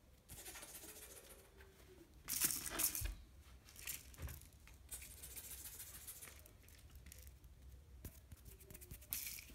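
Sphynx kitten scrabbling and pouncing on a folded quilted blanket and batting a small plastic bottle: bursts of fabric rustling and claw scratching, with a couple of sharp knocks.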